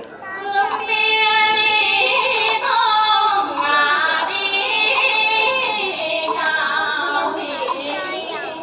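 Live Vietnamese traditional music accompanying a water puppet show: a woman sings long, wavering held notes over instrumental accompaniment, with sharp percussion clicks scattered through.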